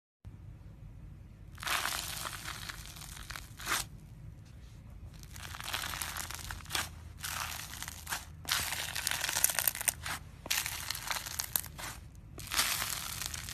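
Slime being squeezed and worked by hand, crackling and popping in several bouts of a second or two each, with short pauses between.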